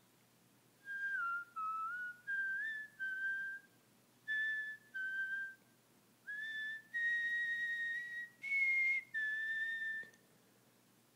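A person whistling a tune: a string of short clear notes that step up and down, then a few longer held notes, the highest near the end.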